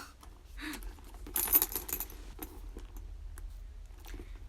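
Metal hardware on a Michael Kors handbag clinking and jangling as it is handled, which the owner calls very noisy: a cluster of sharp clinks about one and a half seconds in, then scattered lighter clicks.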